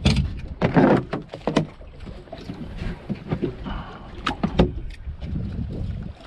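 Wind rumbling on the microphone, with several sharp knocks and clicks and a louder rushing burst about a second in.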